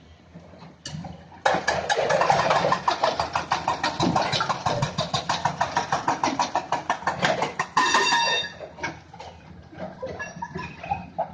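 Heavy machinery making a rapid, even knocking, about nine strokes a second, for some six seconds, ending in a brief high squeal.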